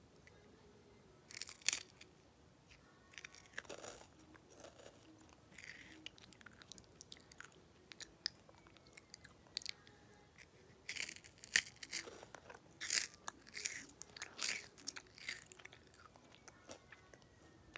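A person chewing and biting small orange snacks close to the microphone: scattered sharp crunchy clicks and short bursts of chewing, most of them coming past the middle.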